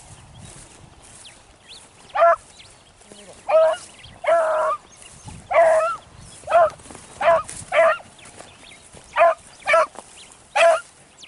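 Beagles baying, about ten loud barks and bays at uneven spacing starting about two seconds in. This is hounds giving tongue as they pick up a rabbit's scent trail.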